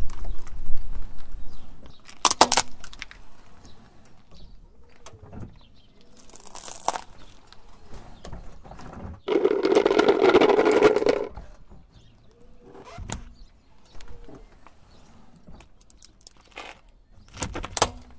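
Car tyre rolling over and crushing small objects on asphalt: a string of separate cracks and crunches. The loudest is a long crackling crush of a yellow plastic hard hat about nine seconds in, and a sharp plastic crack near the end comes from a small toy car breaking under the tyre.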